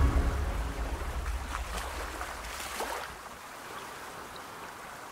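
The end of the music dies away, its low rumble fading over the first three seconds, leaving a soft, steady wash of sea surf.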